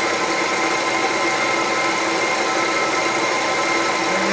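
Milling machine running steadily: an even motor drone with a fixed whine.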